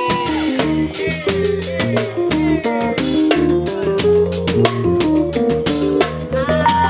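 Live band playing an instrumental groove, with a drum kit keeping a steady beat under a bass line and keyboard.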